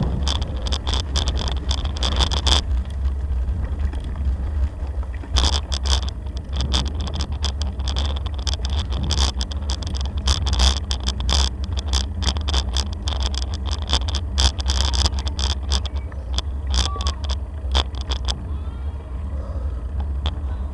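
Bicycle riding over a gravel lane: a steady low rumble of rolling and wind on the microphone, with frequent rattles and clicks from the bike jolting over the rough surface.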